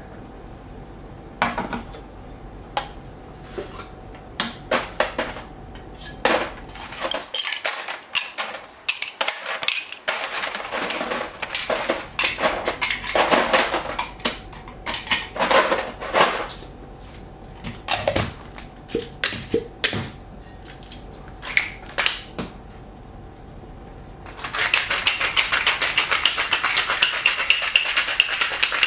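Sharp clinks of ice and metal bar tools as ice cubes are dropped with tongs into a metal cocktail shaker tin. About three-quarters of the way in, a loud rapid rattle starts as the ice is shaken hard in the metal shaker.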